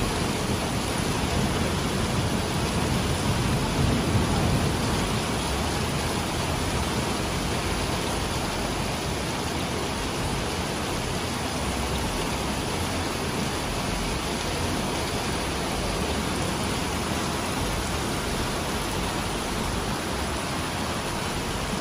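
Heavy rain pouring down in a dense, steady hiss, swelling slightly about four seconds in.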